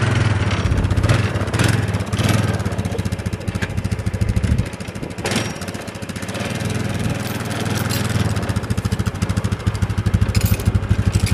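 An engine running with a fast, even pulse, easing off a little around the middle and picking up again near the end, with a few sharp knocks over it.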